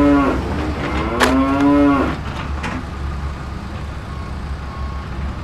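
A cow mooing: the tail of one moo at the very start, then a second moo about a second in that lasts under a second, over a steady low hum.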